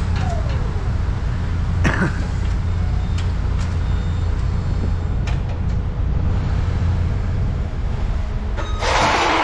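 A heavy vehicle engine idling with a steady low rumble, with scattered metal clanks, a brief falling squeal at the start and a short burst of hiss near the end.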